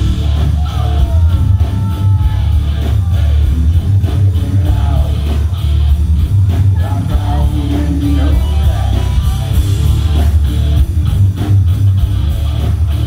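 Live rock band playing, with bass and drums loudest and electric guitar over them.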